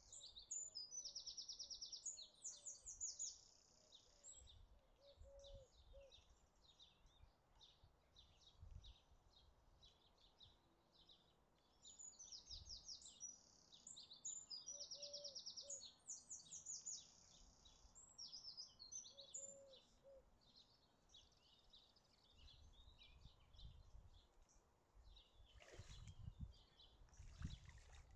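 Several songbirds singing faintly, with high, fast trills and chirps, and a lower short call repeated now and then. Wind gusts rumble on the microphone, and a few knocks sound near the end.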